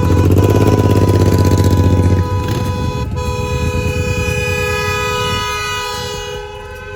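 Car horns held down together, steady tones at several pitches sounding without a break, over loud engine rumble that eases after about two seconds.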